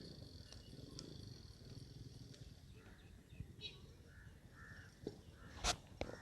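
Faint farmyard ambience with soft animal calls and one sharp knock about five and a half seconds in.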